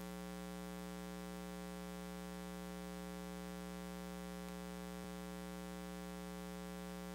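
Steady electrical mains hum with a buzzy row of overtones, unchanging throughout, with two faint clicks about four and five seconds in.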